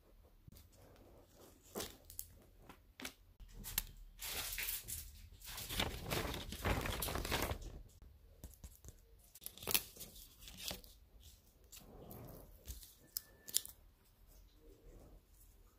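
Sheets of drawing paper being handled and flipped, rustling and crinkling, with a longer, louder stretch of rustling in the middle and a few sharp paper snaps after it.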